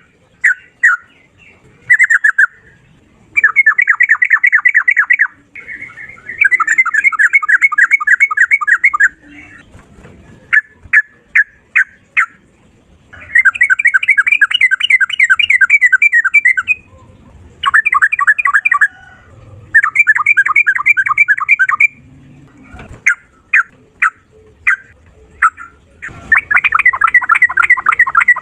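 Yellow-vented bulbul (trucukan) singing: loud, rapid rolling trills of repeated notes, each lasting a couple of seconds, broken up by short single chirps.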